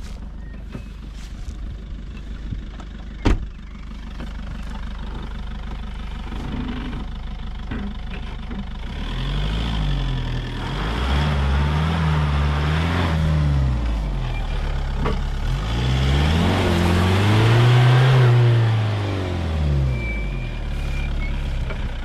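Citroën C8 minivan's engine revving in two long surges that rise and fall in pitch, from about nine seconds in, as the car strains to climb a grassy hill. A sharp knock about three seconds in.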